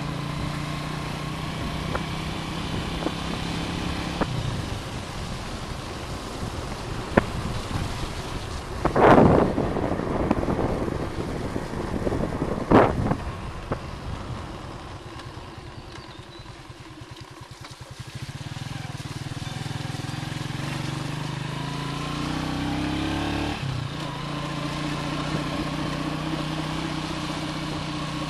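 Motorcycle engine running steadily under way, with two loud thumps about nine and thirteen seconds in. It drops quieter for a few seconds past the middle, then picks up again, rising in pitch before settling.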